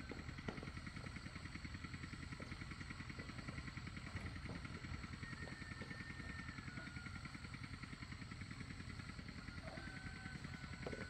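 A small engine running steadily with a fast, even low pulse, with faint thin whistled notes over it midway and near the end.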